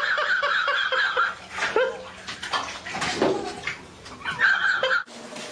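Cat splashing and struggling in a filled bathtub, the water sloshing, with shrill, pulsing cries over it at the start and again near the end. It cuts off abruptly shortly before the end.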